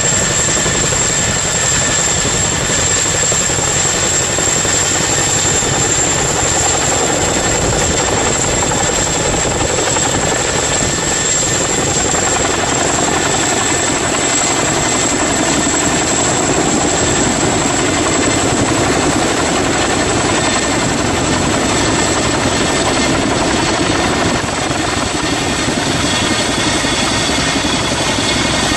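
Boeing CH-47 Chinook twin-engine tandem-rotor helicopter running steadily and loudly, with a dense rotor and engine roar and a high, steady turbine whine on top.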